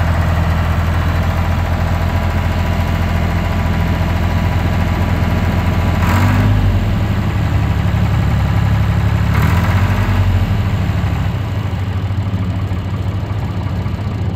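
1983 John Deere 2150 tractor's three-cylinder diesel engine running steadily at low speed as the tractor is driven slowly. Its note rises and falls briefly twice, about six and ten seconds in.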